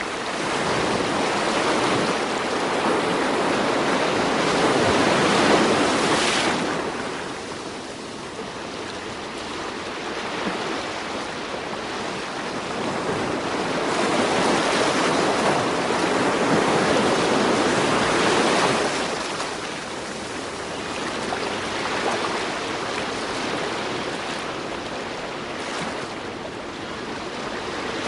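Ocean surf breaking on a beach: a continuous rush of waves that swells and ebbs over several seconds, loudest about five seconds in and again from about fifteen to nineteen seconds.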